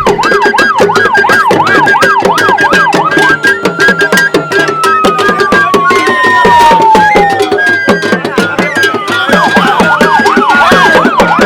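Idoma drums beat steadily, with a siren over them. The siren warbles rapidly up and down about three times a second, slides down in one long falling tone from a few seconds in, then warbles again near the end.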